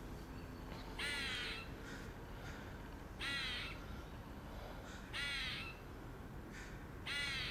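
A squirrel giving four calls, each about half a second long and roughly two seconds apart, which the listener finds unusual for a squirrel and takes for it staking its claim to the tree.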